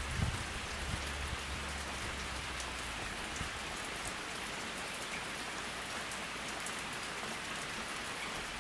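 Steady rain falling on a pond and surrounding foliage, an even hiss dotted with sharp ticks of single drops landing close by.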